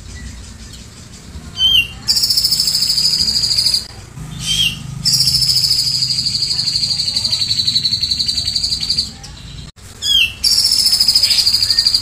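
Caged cucak jenggot (grey-cheeked bulbul) singing three long, very fast high trills, the middle one about four seconds long, each opened by a short chirp. The trill is the cililin-style 'tembakan' fill the bird has learned by mimicry.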